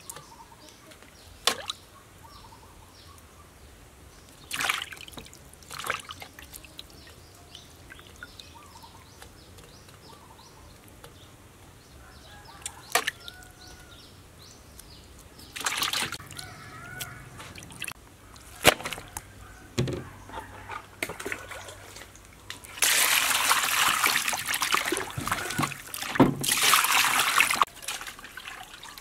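Water splashing and dripping in a stainless-steel basin as squid are cleaned by hand, with scattered short splashes, then several seconds of continuous sloshing near the end as hands wash through the water.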